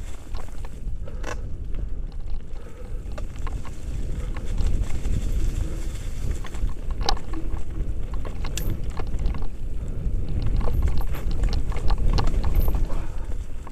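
A mountain bike rolling down a rocky, leaf-strewn trail, heard from a helmet-mounted camera. Wind rumble on the microphone and the constant rattle of tyres over stones are broken by scattered sharp clicks and knocks from the bike.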